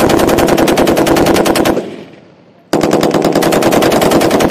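M240 belt-fed 7.62 mm machine gun firing two loud bursts of rapid, evenly spaced shots, each lasting about two seconds, with a pause of about a second between them.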